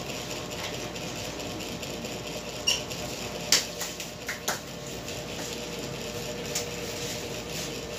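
A handful of sharp clicks and clinks from a barber handling the cape and tools at the counter, over the steady hum of a small barbershop; the loudest click comes about three and a half seconds in.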